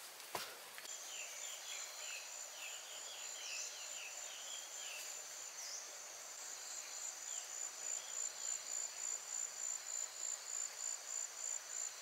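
Insects trilling steadily at a high pitch, pulsing in loudness about twice a second in the second half. Short bird-like chirps come in the first few seconds.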